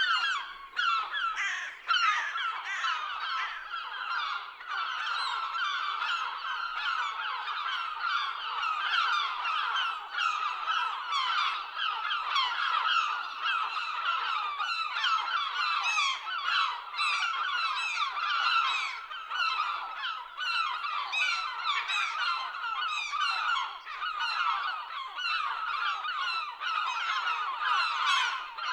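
A flock of gulls calling all at once: many overlapping squawks and cries, steady and dense throughout.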